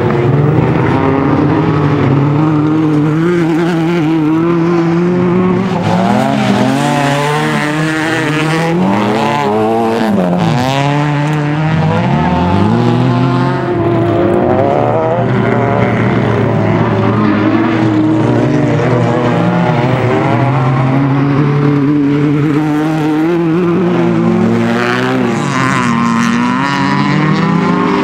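Honda Civic Type-R rallycross car's four-cylinder engine revving hard, its pitch climbing and dropping again and again as the driver shifts and lifts through the corners on a dirt track.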